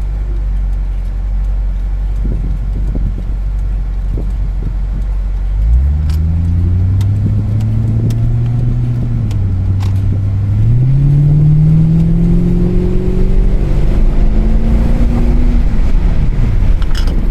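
Lexus SC400 cruising, then accelerating hard from about six seconds in: the engine note climbs, dips once as the automatic transmission upshifts, climbs again and falls away near the end as the throttle is let off. The upshift is a sign that the repaired transmission is shifting properly again.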